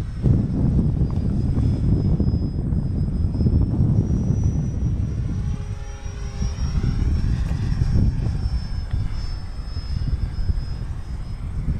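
Electric RC model airplane's motor and propeller giving a thin, high whine that rises in pitch about four seconds in and then slowly falls as the plane passes overhead. Heavy wind buffeting on the microphone makes a loud low rumble beneath it.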